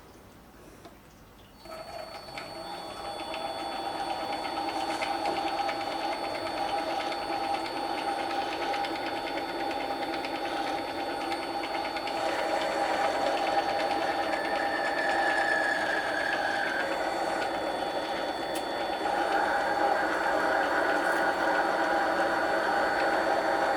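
Mini lathe starting up a second and a half in and running steadily with a thin high motor whine, getting louder around the middle and again near the end.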